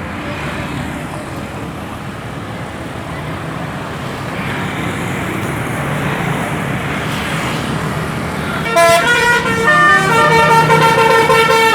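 Traffic noise building as a vehicle approaches, then, about nine seconds in, a bus's Basuri telolet horn plays a loud melody of several quickly changing notes.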